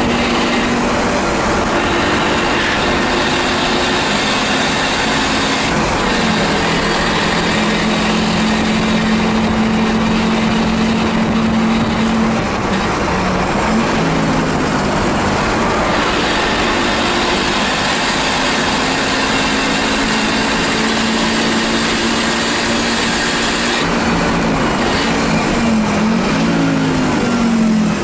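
1984 Audi 4000 race car's engine running hard, heard from inside its bare, roll-caged cabin over a loud rushing noise. Its pitch drops once about six seconds in, wavers around the middle, and steps down and up several times near the end.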